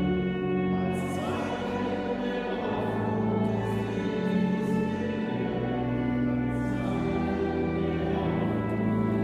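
Slow church music of sustained chords, each held for a second or two before moving on, with a choir-like sound.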